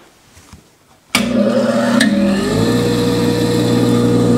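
A 1978 Duracraft half-horsepower bench grinder switched on with a sudden click about a second in. Its motor hums, rising in pitch as the wheels spin up, then runs steadily. It is running again because its faulty power cord has been replaced.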